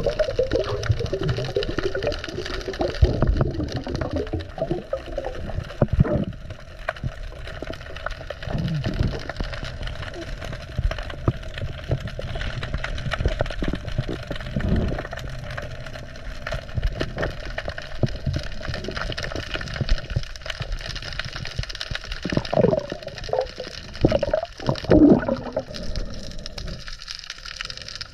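Underwater sound of a dive: water gurgling and bubbles, over a steady crackle of many small clicks, with a few louder gurgling swells near the end.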